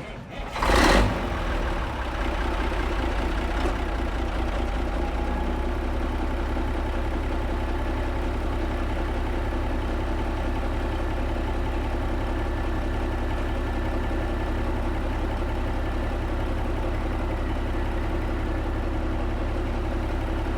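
Kenworth K100 cabover's diesel engine starting with a loud burst in the first second, then settling into a steady idle through a newly fitted 8-inch miter-cut exhaust stack.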